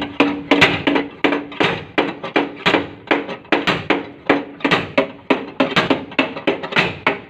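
Hammer blows on a Suzuki Carry's sheet-metal body panel, a steady run of about two to three ringing strikes a second, working out a dent along the panel's press line.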